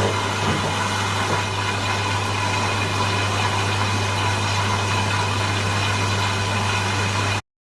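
Hoover and Logik washing machines running early in a 20 °C cotton cycle: a steady hum with a hiss over it. It cuts off suddenly near the end.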